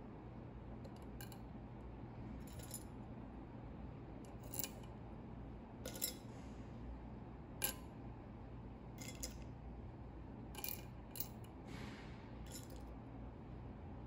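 Metal tweezers clinking against a glass goblet and the seashells inside it, about ten light, sharp clinks at irregular intervals over a low steady hum.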